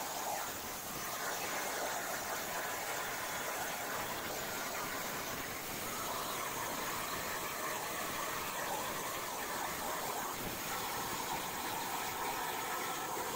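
Hypertherm Powermax85 plasma torch on a CNC plasma table cutting steel plate: the arc and its air make a steady hiss, its tone changing slightly about six seconds in.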